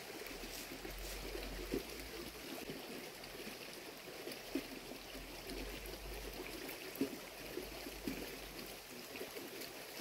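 Shallow woodland stream trickling steadily over stones, with a few short soft taps or knocks.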